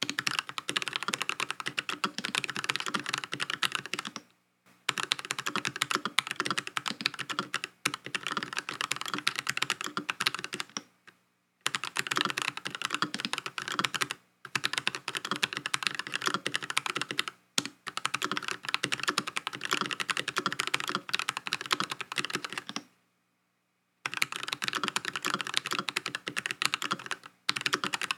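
Fast typing on a full-size aluminium COX CA108BT mechanical keyboard fitted with Gateron Kangaroo switches. The keystrokes come in dense runs of a few seconds, broken by brief pauses.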